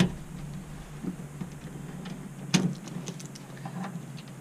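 Small clicks and taps of a VGA cable plug and VGA-to-DVI adapter being fitted to a video card's output port at the back of a PC case, with one sharper click a little past halfway.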